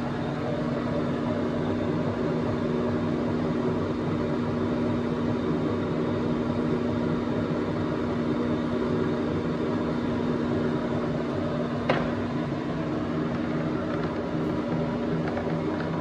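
Gleason Model 14 Coniflex straight bevel gear generator running under power through a cutting cycle, a steady mechanical hum with a strong low tone. A single sharp click about twelve seconds in.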